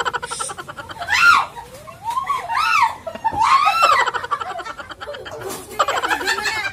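Women's voices shrieking and laughing: three long cries that rise and fall in pitch, between bursts of quick pulsed laughter.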